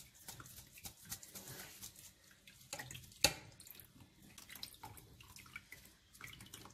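Water dripping and trickling from freshly churned butter in a metal sieve into a plastic tub as the butter is rinsed, with scattered small clicks and one sharp knock about three seconds in.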